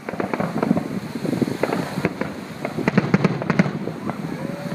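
Fireworks going off: a rapid, irregular string of bangs and pops of varying loudness, some close and sharp, others fainter.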